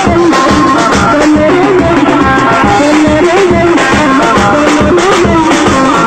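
Loud traditional Nigerien dance music: drums beating a fast, steady rhythm under a wavering melody line.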